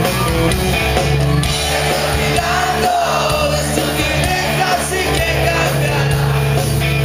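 Live rock band playing: electric guitars, bass and drums, with a singing voice over them, heard through the hall's reverberation from among the audience.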